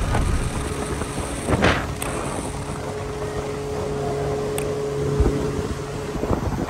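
Motorboat engine running under way, with wind buffeting the microphone and water rushing past the hull. A steady engine tone holds through the middle.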